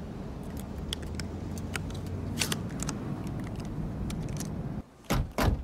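Shells being pushed one by one into a pump shotgun's magazine: a run of small metallic clicks over the low steady rumble of a car interior. Near the end the rumble drops away and two loud, sharp clacks come about half a second apart.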